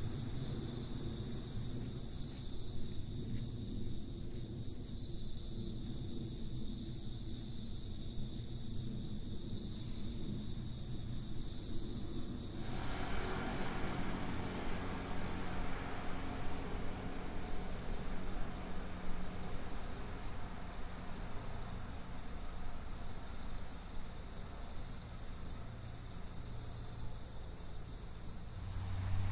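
Japanese bell crickets (suzumushi) singing steadily in chorus, over a faint low rumble.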